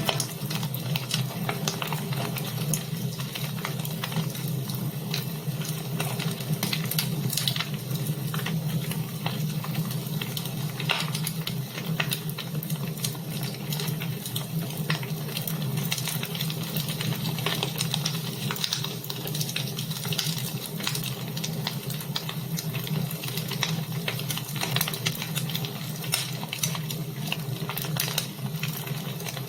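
Wood fire burning in a fireplace: a steady hiss with frequent, irregular crackles and pops.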